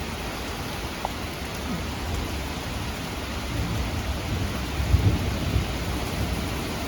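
Thunderstorm: heavy rain pouring steadily with strong wind gusts. A deep rumble swells about four seconds in and eases off a couple of seconds later.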